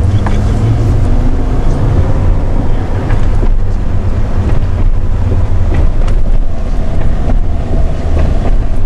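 Car driving slowly, heard from inside the cabin: a steady deep rumble of road and engine noise with some wind on the microphone.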